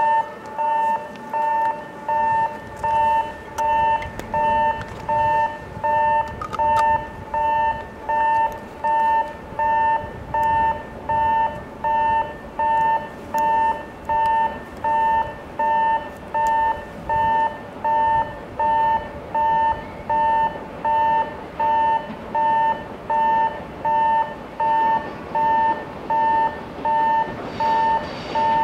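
Japanese railway level-crossing alarm sounding: a steady electronic two-note beep repeating just over once a second as a train approaches. Near the end the rushing noise of the approaching EF64 electric locomotive and its freight train begins to rise under it.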